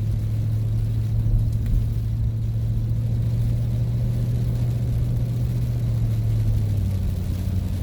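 A van's engine and road noise heard from inside the cab while driving: a steady low rumble whose pitch shifts slightly near the end.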